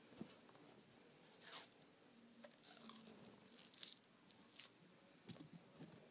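Sports tape being pulled off the roll and wrapped around the knob of a hockey stick: faint, short rasping tears, a few in a row, the loudest about a second and a half in and near the middle.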